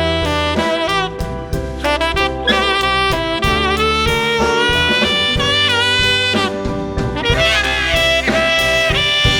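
Saxophone solo during a song's instrumental break: long held notes with a few bends, over a steady bass line and the rest of the band.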